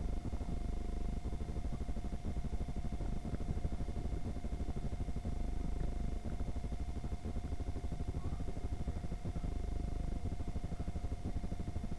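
Inclined moving walkway running: a steady low rumble with fine rapid flutter and a constant hum.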